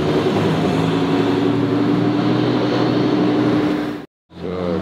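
Lamborghini Huracán's V10 running as the car pulls away at low speed, a steady engine note. It cuts off abruptly about four seconds in, and another engine sound comes in just before the end.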